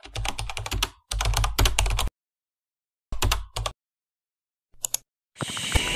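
Computer keyboard typing: two quick runs of keystrokes, then a shorter run, then a brief double click about five seconds in. Music starts just before the end.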